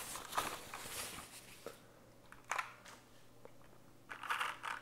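Soft rustling of a white wrapping sheet being pulled off a compact mechanical keyboard, with a few light clicks as it is handled. Near the end comes a quick run of key presses on its mechanical switches.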